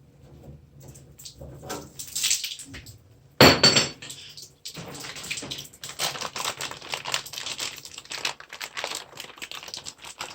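Metal plumbing fittings and tools being handled: a few light knocks, a sharp ringing metallic clank about three and a half seconds in, then steady irregular clicking and rattling.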